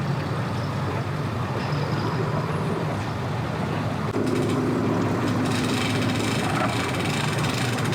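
Vehicle engines running steadily, a low hum, with a second, higher engine note joining about four seconds in and a rushing hiss rising over it from about five and a half seconds.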